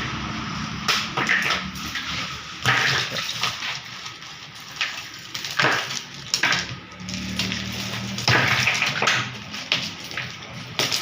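Irregular knocks and cracks of blocks of ice being broken up, with wet splashing of the water held inside the ice.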